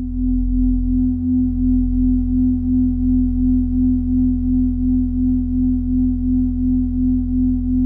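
Minimalist synthesizer drone music: a steady pure sine tone pulsing in volume about three times a second over a deep, unchanging bass drone.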